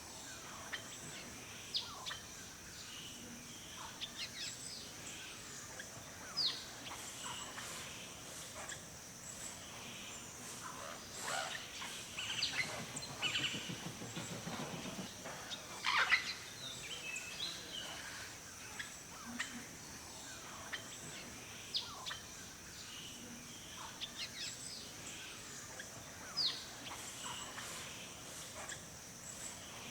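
Several wild birds calling in woodland with short chirps and quick sweeping notes, scattered irregularly over a steady high hiss. A low rattling sound comes in about halfway through.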